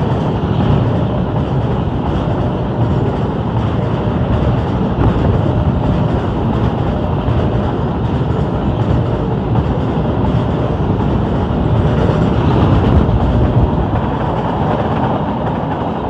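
Train passing close by: a loud, steady rumble of its wheels and cars running on the rails.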